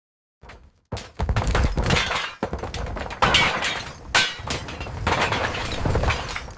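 Falling-debris sound effect: a crashing tumble of breaking and shattering rubble over a low rumble. It starts faintly, crashes in about a second in, and has its heaviest impacts a little past the middle.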